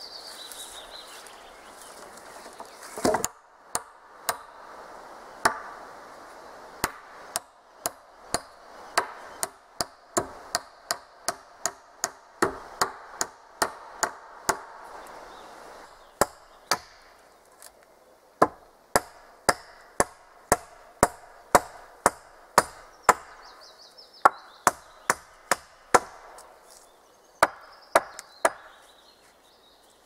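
Repeated sharp blows on wood, coming in quick runs of about two a second with short pauses between runs, starting about three seconds in.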